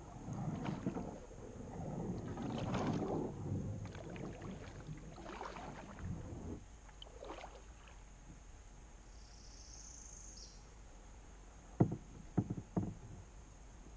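Kayak paddle strokes splashing and swishing through the water for the first six seconds or so, then a quieter glide. Three sharp knocks come near the end.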